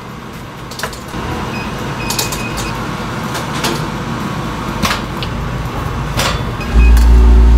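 Doughnut production machinery running: a steady mechanical din with scattered clicks and clanks from the conveyor. Near the end a much louder low hum cuts in.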